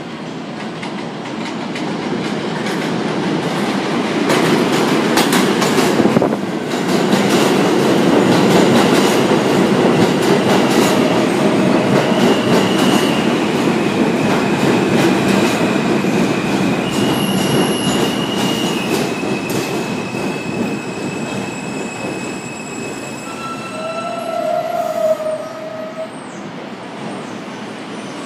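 R160 subway train pulling into the station and braking to a stop. The wheel rumble swells as it arrives, with rapid rail-joint clatter, then thin high brake squeals through the second half, and a shorter, lower squeal just before it halts near the end.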